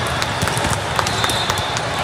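Steady din of a large sports hall packed with volleyball courts, with scattered sharp knocks of balls being hit and bounced on the surrounding courts.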